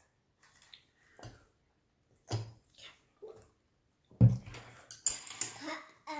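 Close-up eating noises at a meal of ramen noodles: a string of short mouth sounds and utensil clinks against dishes. The loudest comes sharply about four seconds in, followed by a denser hissy stretch near the end.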